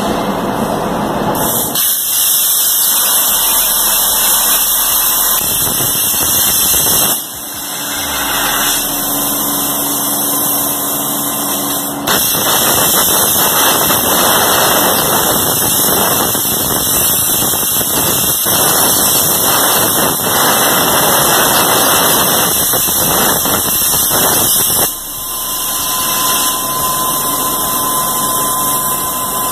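CNC plasma torch on an ESAB Crossbow HD table cutting steel plate: a loud, steady hiss of the plasma arc and its gas. The sound dips sharply twice, about seven seconds in and near the end, as the torch pauses between cuts and then builds back up.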